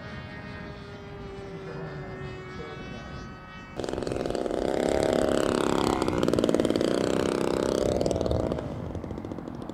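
Radio-control model airplane engines. First a distant, steady engine drone, then about four seconds in an abrupt jump to a much louder, closer engine as a scale warbird model comes in to land. The louder engine fades near the end.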